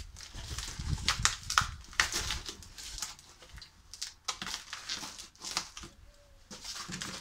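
Cardboard box being torn open by hand and its tape and wrapping cut with scissors: irregular crinkling, tearing and scraping, busiest in the first couple of seconds.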